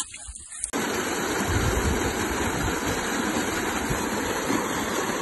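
Steady close rush of a small waterfall pouring over rock, starting suddenly less than a second in; before it, a brief low rumble.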